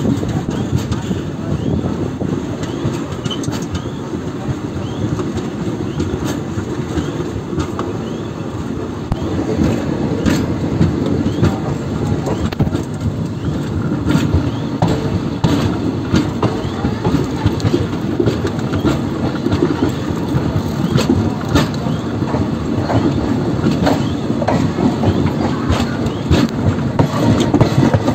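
Indian Railways express train running, heard from on board: a steady low rumble of the coaches with the wheels clicking over rail joints, the clicks coming thicker from about ten seconds in.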